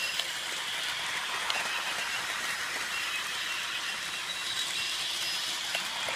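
Remote-control Thomas toy train running on its plastic track: a steady high whir from its small electric motor and gears, with a few faint clicks.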